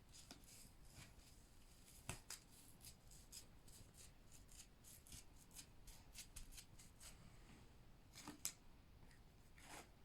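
Near silence with faint, scattered clicks and light scraping from small objects being handled, slightly louder about two seconds in and again near the end.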